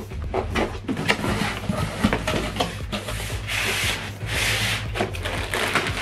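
Cardboard flaps of a large shipping box rubbing and scraping as they are pushed open and slid aside, with a few light knocks. There are two longer scrapes about three and a half and four and a half seconds in.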